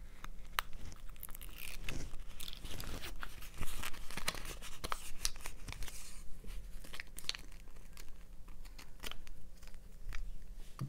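A sheet of rhinestone mesh trim being handled: crinkling and crackling with scattered sharp ticks, busiest in the first six seconds or so and sparser after.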